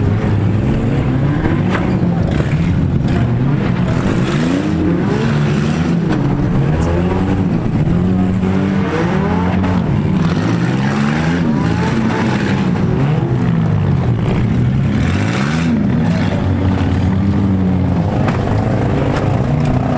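Several compact-car engines revving up and down at once, their pitches rising and falling over each other, with a few knocks from cars hitting.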